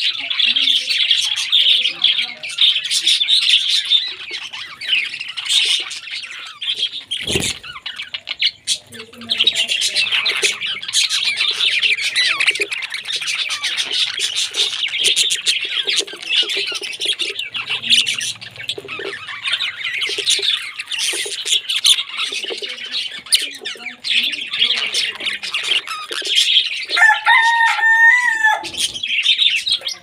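A flock of budgerigars chattering continuously, a dense overlapping mass of quick chirps and warbles. Near the end a longer, lower-pitched call stands out above the chatter.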